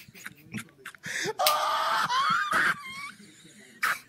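A man laughing in short breathy bursts, with a longer wheezing laugh about a second and a half in.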